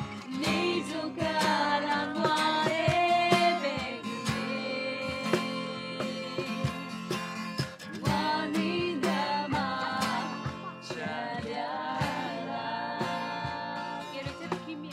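Music: a song with singing over guitar and a steady beat.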